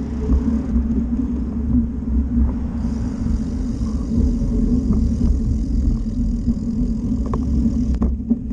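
Steady low rumble of a small vehicle in motion, with a few light clicks near the end.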